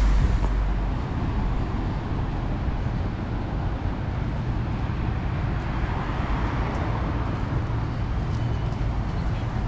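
Steady road traffic noise from vehicles on a city street, with a louder low rumble right at the start.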